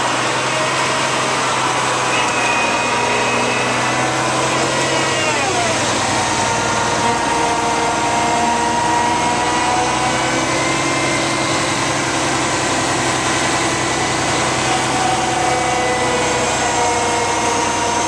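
Cat C-10 diesel engine of a Kenworth T800 concrete mixer truck running steadily, with whining tones that shift in pitch and one falling glide about five seconds in.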